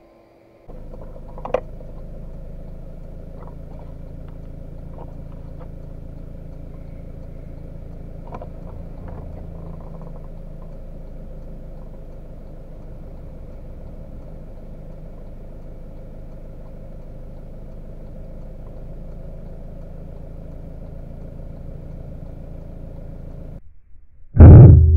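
A steady low hum, then near the end a single loud, sudden shot from a Weihrauch HW100 PCP air rifle.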